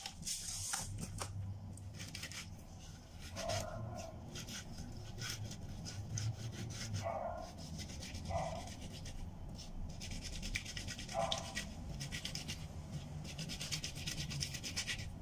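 Hands rubbing and rolling salt-coated okra pods back and forth on a wooden chopping board: a continuous gritty scrubbing of many quick strokes, the salt scouring off the pods' fine hairs.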